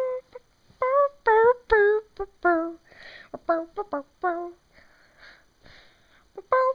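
A child singing a tune in short separate syllables, each note bending in pitch, with a quieter stretch of breathy sounds around the middle.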